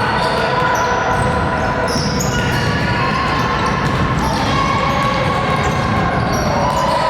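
Basketball dribbled and bouncing on a gym court during a game, with short high squeaks and a background of spectators' voices echoing in the hall.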